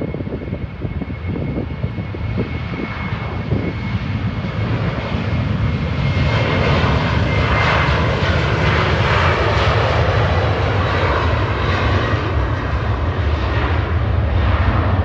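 Airliner's jet engines at takeoff thrust during the takeoff roll: a loud, steady roar with a deep rumble and a faint whine, swelling about five seconds in as the accelerating jet comes abreast.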